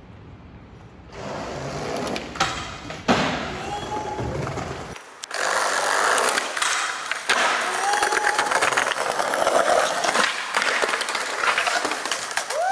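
Skateboard wheels rolling over pavement, a rough steady rumble with scattered clacks from the board and a few brief squeaks.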